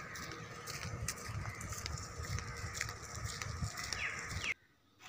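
Outdoor roadside background picked up by a phone while walking: a low, uneven rumble with scattered faint clicks and one short gliding call. It cuts out to silence for about half a second near the end.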